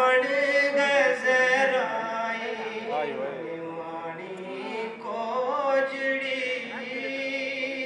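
A singer's voice holding long, ornamented notes of a Gojri ghazal, with sliding turns in pitch about two seconds in and again about five seconds in.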